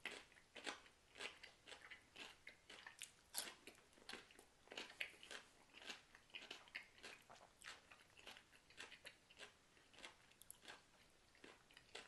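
A person chewing crunchy food with the mouth closed: faint, irregular crunches, about two to three a second.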